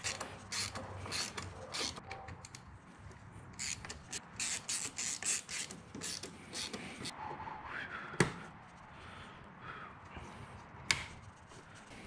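Ratcheting wrench clicking in short quick runs as a fastener is turned, with two sharper single clicks, about eight seconds in and near the end.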